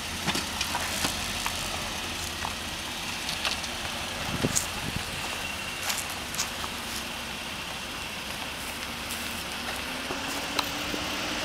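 2009 Infiniti G37's 3.7-litre V6 running at low revs while the car rolls slowly across the lot, with a faint rise in engine note near the end.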